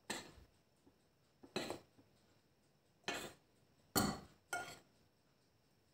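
A metal spoon and whisk clinking against the rim of a mixing bowl as flour is spooned into kefir batter: five separate short clinks, spread out.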